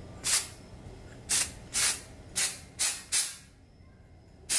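Aerosol dry shampoo can sprayed into hair in about seven short hissing bursts, with a pause of about a second before the last one.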